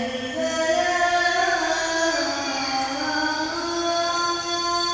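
A young boy muezzin chanting the adhan, the Islamic call to prayer, in one long drawn-out ornamented phrase. Its pitch climbs in steps and is held high near the end.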